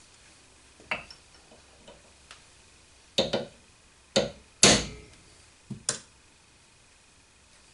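Hammer striking a steel punch against the spindle bearing nut of a Cormak ZX 7045 mill quill held in a vise, tapping the nut round to tighten the bearing preload. A few light taps about a second in, then a run of sharper metallic strikes between about three and six seconds in, the loudest near the middle.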